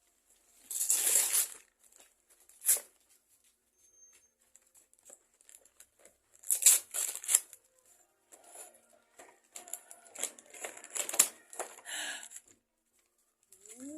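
Gift wrapping paper being torn and crinkled as a child unwraps a present, in irregular rips and rustles with short pauses between them.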